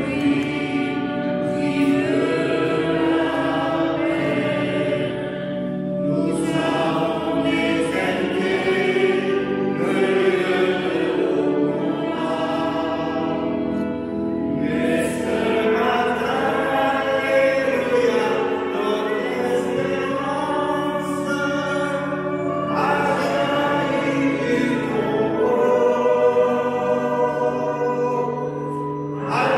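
A choir singing a hymn in sustained, many-voiced lines during a Catholic Mass.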